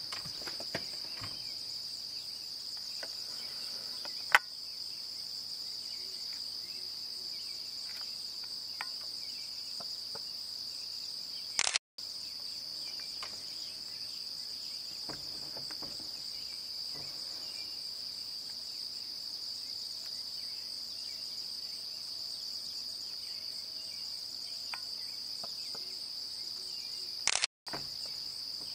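Steady high-pitched chorus of night insects such as crickets, one unbroken trill. A sharp click sounds about four seconds in, and the sound drops out briefly twice, at about twelve seconds and near the end, where the recording cuts.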